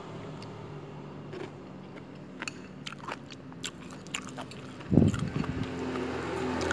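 A metal fork and spoon clink and scrape against a ceramic bowl as noodles are stirred, in scattered sharp ticks, with one louder dull bump about five seconds in.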